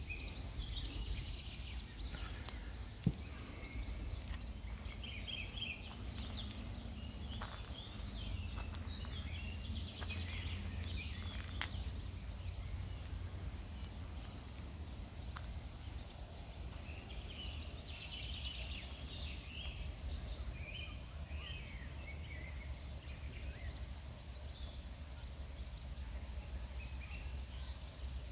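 Songbirds chirping and singing in the trees in short repeated phrases, over a steady low rumble. One brief click about three seconds in.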